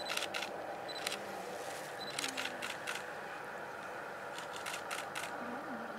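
Camera shutters clicking in short bursts of several frames, a few times, over a steady low background hum.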